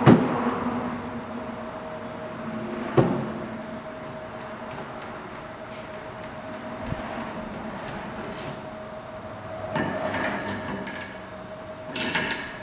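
Metal parts of a stud hole plug tool being handled and fitted onto its steel shaft: sharp clanks at the start and about three seconds in, a run of light ringing ticks over the next few seconds, then clattering twice near the end. A steady hum runs underneath.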